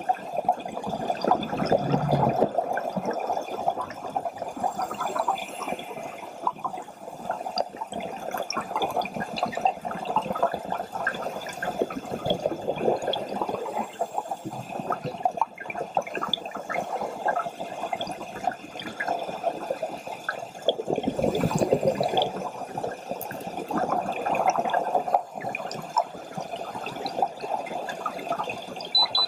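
Underwater sound of a scuba diver's regulator breathing, the exhaled bubbles surging about two seconds in and again around twenty-one seconds, over a constant fine crackling.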